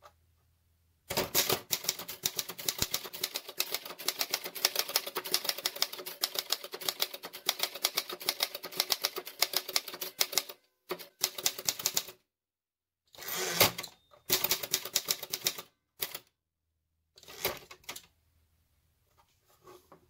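Sperry Rand Remington Streamliner plastic-bodied portable typewriter being typed on: a fast, continuous run of sharp keystroke clacks for about nine seconds, then shorter bursts of keystrokes with pauses between them. The typing is very loud, which the typist puts down in part to a hard platen.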